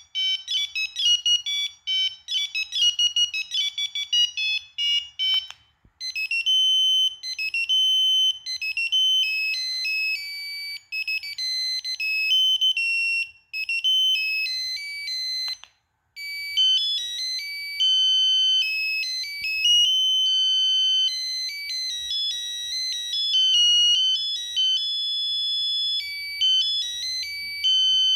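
Preloaded ringtones of a Kyocera 2235 phone playing one after another: short electronic melodies of quick, high notes. There are brief breaks where one tune stops and the next begins, about five and a half and fifteen and a half seconds in.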